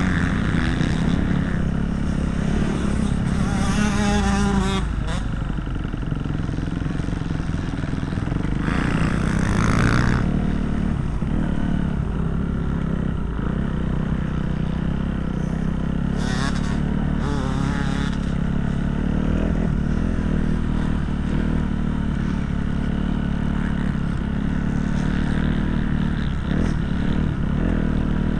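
Motocross bikes running on the track: a steady engine drone, with engines revving up and down and bikes passing closer a few times.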